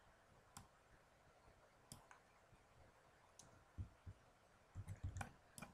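Faint, scattered clicks of a computer mouse and keyboard, a second or more apart, with a few soft low thumps in the second half, over near silence.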